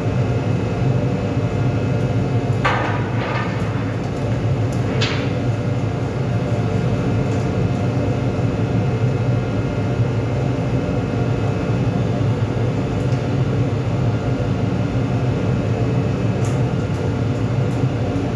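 Steady low drone and hum of a ship's machinery heard on deck, with several constant tones over it. A couple of brief higher sounds about three and five seconds in.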